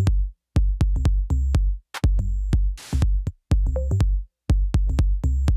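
Electronic background music with a drum-machine beat and heavy bass, chopped into short phrases with brief silences between them.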